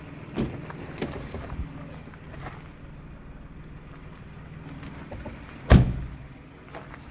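MINI Countryman front passenger door: the handle and latch click as it is pulled open near the start, then the door is shut with a solid thud a little before the end, the loudest sound.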